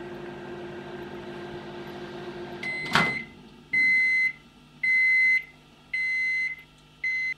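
Microwave oven running with a steady hum that stops with a click about three seconds in as its timer runs out, followed by the oven's end-of-cycle beeps: a high tone about once a second, each beep about half a second long, five in all.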